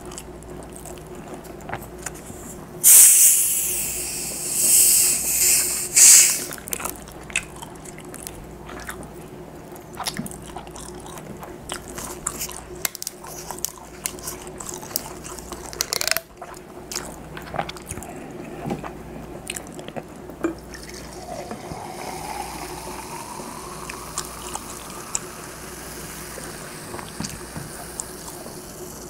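Plastic cola bottle cap twisted open: a loud fizzing hiss of escaping gas in about three bursts a few seconds in. Later, cola poured into a glass mug, the pouring rising in pitch as the mug fills.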